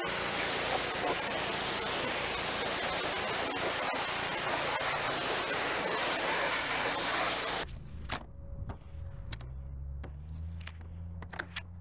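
Water spraying steadily onto a car during a wash, with a loud even hiss that cuts off abruptly about two-thirds of the way in. After it come a few sharp clicks and a low steady hum.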